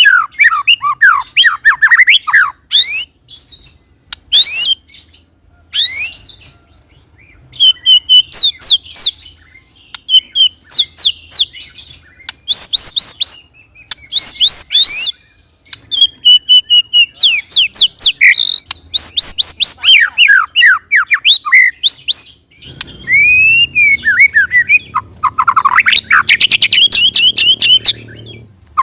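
White-rumped shama singing loud, rapid-fire bursts of quick sweeping notes, each burst lasting a second or two with short pauses between them, and an almost unbroken rolling run near the end.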